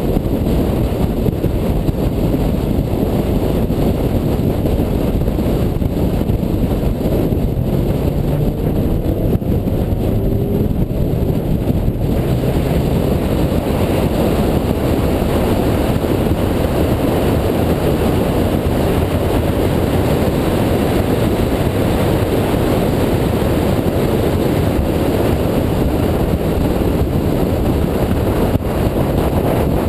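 2004 Mini Cooper S, a supercharged four-cylinder, driven hard on a race track: a steady rush of wind and road noise over the engine, with the engine's note rising faintly between about seven and twelve seconds in.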